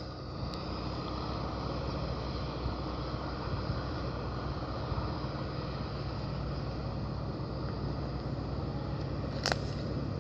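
Distant tractor engine running steadily, with a single sharp click near the end.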